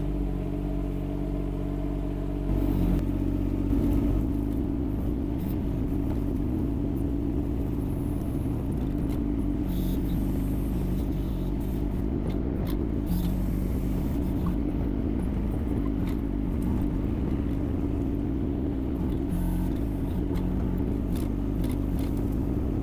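Yanmar diesel engine of a Kymron XH20D mini excavator running steadily. It picks up and gets louder about two and a half seconds in, then holds that pitch, as it would under load while tracking on a slope.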